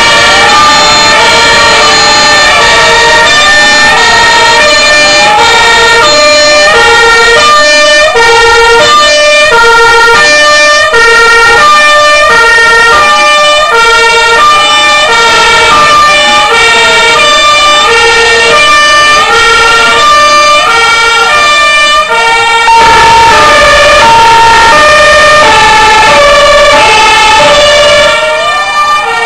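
Sirens of several fire engines sounding together, loud: two-tone horns stepping back and forth between two pitches, overlapped by a siren that sweeps up and down about every one and a half seconds. The sound eases a little near the end.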